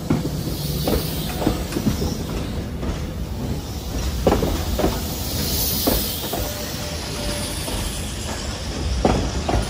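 Train gathering speed after pulling out of the station. A steady low rumble with irregular sharp clacks of the wheels over the rail joints.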